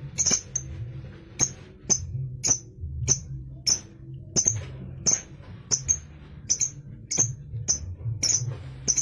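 Lovebird giving short, sharp high-pitched chirps in a steady series, about two a second, over a low hum.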